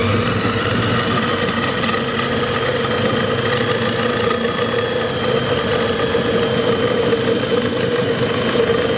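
Electric line-spooling machine running steadily as it winds fishing line onto a reel spool under tension, its hum rising briefly in pitch at the start and then holding. It runs a little heavily because the line is being packed on tight.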